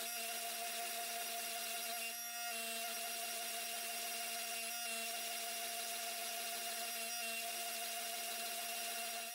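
Hydraulic forging press running: a steady machine hum with a faint whine over it, while the hot steel is squeezed between its fullering dies.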